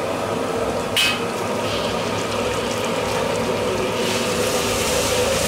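Food frying in a hot steel wok as chicken pieces are tossed in and stirred with a metal ladle. A sharp clank of the ladle on the wok about a second in, and the sizzle gets louder after about four seconds.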